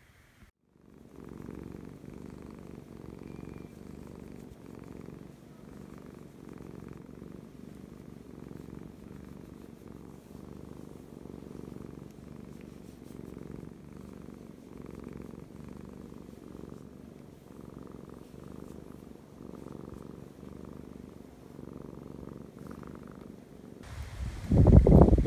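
Domestic cat purring steadily and close up as it is scratched under the chin. About a second before the end it cuts to loud wind buffeting the microphone.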